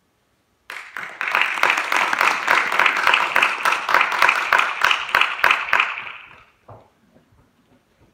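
Audience applauding at the end of a sung piece, starting sharply just under a second in and dying away around six seconds, followed by one soft knock.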